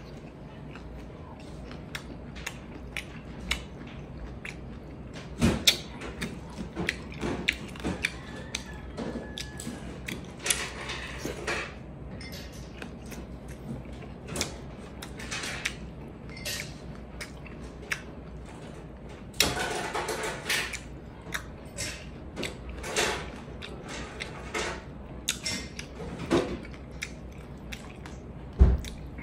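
Close-up eating sounds of a person eating kinilaw (vinegar-cured raw fish) and rice by hand: chewing, lip smacks, finger licking and many small clicks, over a steady low hum. A louder knock comes near the end.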